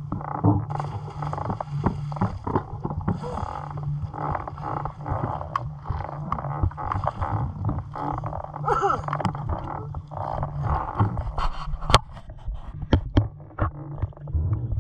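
Pool water sloshing and slapping against a waterproof action camera at the surface, with irregular splashes and sharp clicks as a person wades through the water, over a steady low hum.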